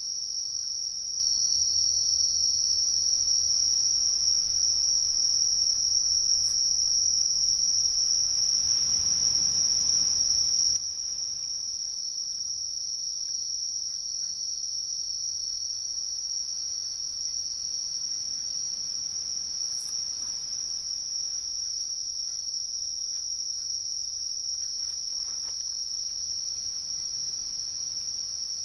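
Night insect chorus of crickets trilling in one continuous high-pitched drone. It is louder for about ten seconds from roughly a second in, then drops back suddenly to a steadier, softer level.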